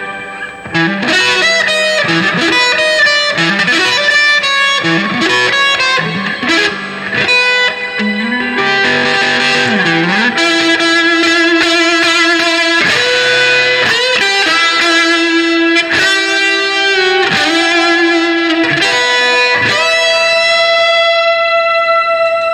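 Electric guitar, a Gibson Les Paul run through an Electro-Harmonix Oceans 11 reverb pedal, playing a lead line of picked single notes with string bends, then a held note left ringing out in the reverb near the end.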